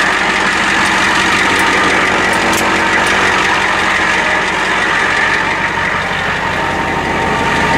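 Late-1980s Ford truck's diesel engine idling steadily with a rattle.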